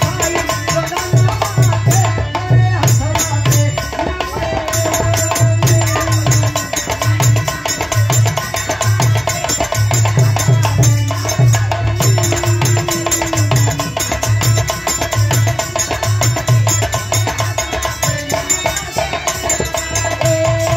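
Folk stage music with a steady, repeating hand-drum beat under a sustained melody line.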